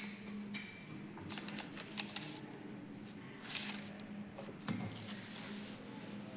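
Newspapers being handled on a table: paper rustling and sliding in several brief bursts, with a few light clicks.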